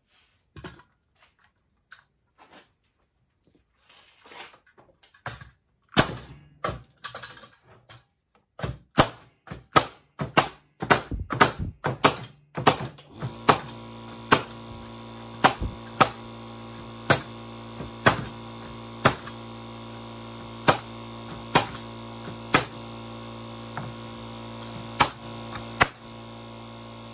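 Pneumatic framing nailer driving 10-penny common nails into pine 2x lumber: a run of sharp shots, fast and close together at first, then about one a second. About halfway through, a portable air compressor's motor starts and runs steadily under the shots as it refills its tank.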